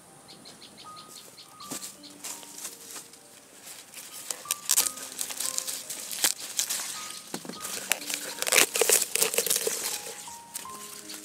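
Dry corn leaves and husks rustling and crackling as hands take hold of ears of corn on the stalks, loudest about three-quarters of the way through. Soft background music of single held notes plays underneath.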